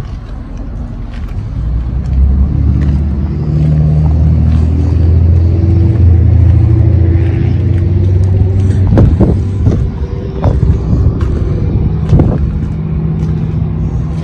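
A motor vehicle's engine running nearby: a steady low rumble that swells up about two seconds in and eases near the end, with a few sharp clicks around the two-thirds mark.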